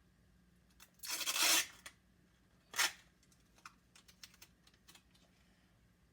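Adhesive tape being pulled off the roll: one long rip about a second in, then a short sharp rip as it is torn off, followed by light clicks and taps of handling.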